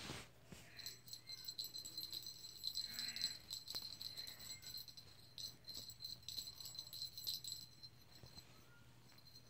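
Small bell jingling in quick, uneven shakes as a feather wand toy is flicked and batted about by kittens, stopping near the end.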